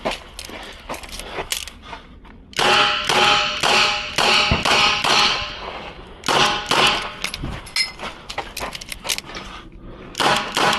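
Smith & Wesson 929 9mm revolver firing rapid strings of shots at steel targets, which ring after the hits. The shots come in three bursts with short pauses between.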